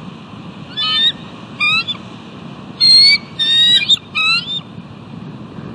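Bald eagle calling: five short bursts of high, rapid, stuttering chitter notes over about four seconds, the middle bursts the loudest.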